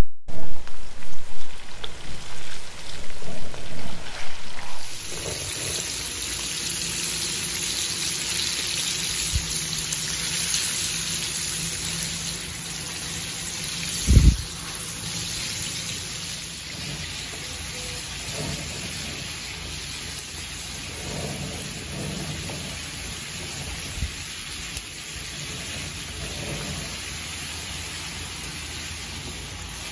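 Chicken frying in hot oil in a cast iron skillet: a steady sizzle of fine crackling. It is louder and uneven for the first five seconds. About 14 seconds in there is a single low thump.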